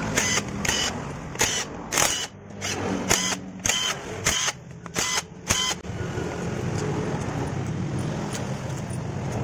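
Cordless impact driver with an 8 mm socket spinning out the clutch-cover bolts of a motorcycle engine, in about a dozen short trigger bursts over the first six seconds. A steady mechanical running noise follows and stops just before the end.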